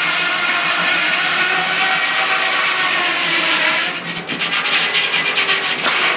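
Sawmill running with a loud, steady noise. About four seconds in, the sound dips and gives way to a fast, even clatter of repeated clicks.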